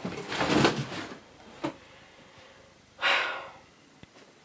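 Packaging rustling as a vacuum cleaner is handled out of its wrapping, with a click a little over a second later. About three seconds in there is a short breathy exhale.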